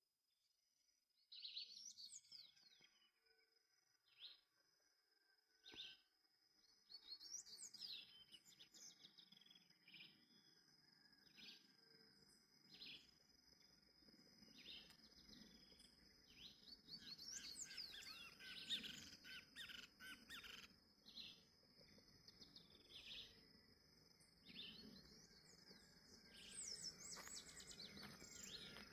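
Wild double-collared seedeater (coleiro) singing faintly: short sharp high notes repeated every second or two, broken a few times by longer phrases of fast sweeping notes.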